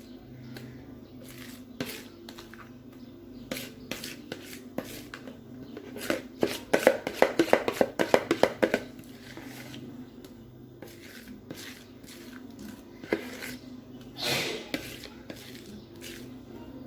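Kitchen utensil knocking and scraping against a bowl: scattered taps, a quick run of rapid knocks in the middle, and a short louder scrape near the end.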